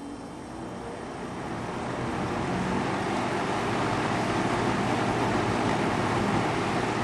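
Vintage Toastmaster 5235 box fan spinning up after being switched on, its rush of air growing louder over the first few seconds, then running steadily at speed.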